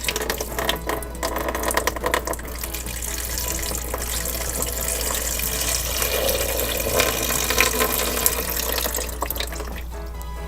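Water running from a toy sink's tap into its basin, filling it, a steady splashing with small clicks.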